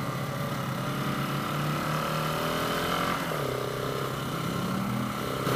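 Motorcycle engine running under way on the move, its pitch shifting a few times as the throttle changes, with wind rush on the helmet-mounted microphone.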